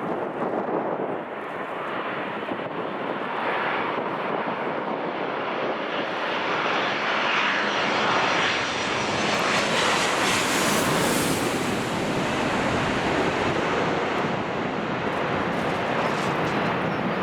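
Jet airliner passing close by, its engine noise building to a peak about ten seconds in and then slowly fading, with strong wind buffeting the microphone.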